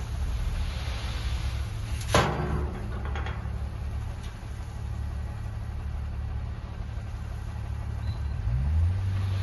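An engine running steadily at low revs, with one sharp metallic knock about two seconds in; near the end it revs up and holds a higher note.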